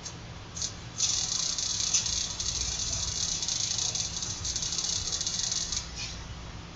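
Lighter clicked a couple of times, then a steady hiss of gas for about five seconds that cuts off suddenly.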